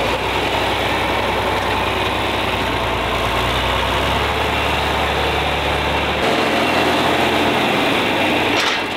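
John Deere farm tractor engine running steadily at a low idle, its low hum shifting slightly in pitch about four seconds in and again about six seconds in.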